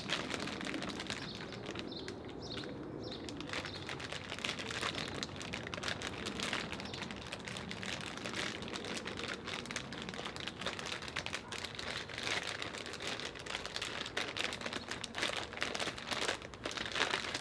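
Plastic bag crinkling steadily in a dense, irregular crackle as a Rubik's Cube is turned inside it by hand.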